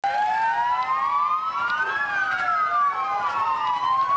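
Two police sirens wailing, each slowly rising and falling in pitch and out of step with the other, so their tones cross back and forth.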